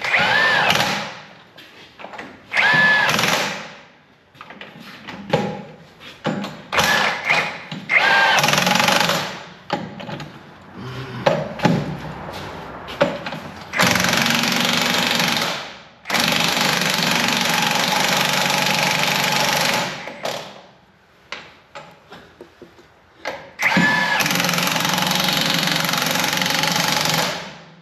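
Power torque wrench running lug nuts onto a truck wheel in about six bursts, each spinning up with a rising whine into a steady run, the longest about four seconds; small clicks and taps fill the gaps between.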